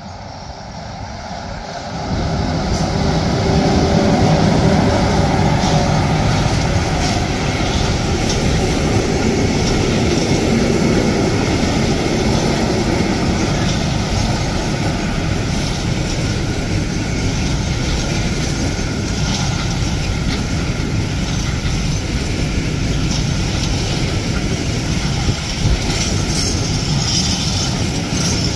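Freight train passing close by: the electric locomotive draws near and goes by in the first few seconds. A long string of loaded container flatcars follows, rolling past in a steady rumble, with brighter, higher wheel noise near the end.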